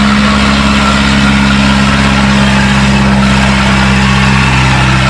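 Old Landini farm tractor's diesel engine idling steadily at an even pitch, hitched to a tractor-pulling sled.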